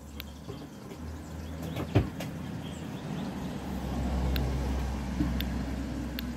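A vehicle passing: a low rumble that builds to its loudest about four seconds in and then eases off, with one sharp click about two seconds in and a few faint ticks.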